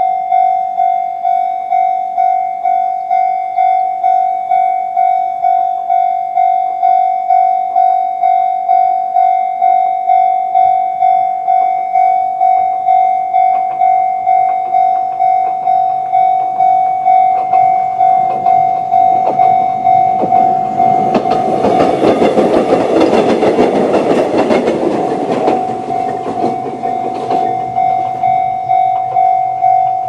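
Japanese electronic level-crossing bell with the 'Chichibu' tone, ringing steadily at about one and a half strikes a second. From about halfway through, a Kōnan Railway 7000-series electric train approaches and passes over the crossing, loudest about two-thirds through and briefly drowning the bell, then fades while the bell keeps ringing.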